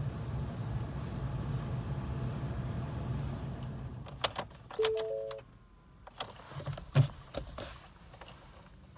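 A 2017 Ford F-150 cranking in cold weather without starting: a steady low rumble for about four seconds that then stops. A few sharp clicks follow, and the dashboard warning chime sounds about five seconds in.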